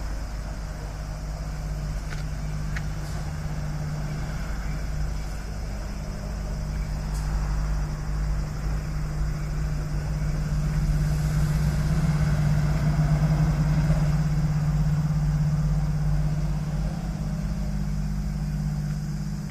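A vehicle engine running at a steady low note, growing louder to a peak a little past the middle and then easing off slightly.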